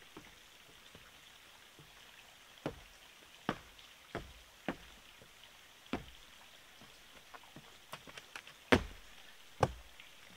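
Footsteps and wooden knocks on a deck of pallet boards as a wooden trestle is shifted, climbed and stepped down from. The knocks are single and irregular, with the loudest thump near the end.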